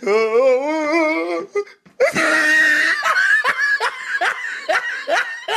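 People laughing hard. A long wavering laugh comes first, then after a brief pause a louder burst and a run of quick, repeated laughs.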